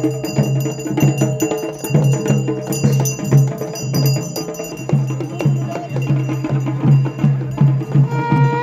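Traditional procession music: drums beating a repeated rhythm with metallic bells ringing over them. Near the end a wind instrument starts playing long held notes.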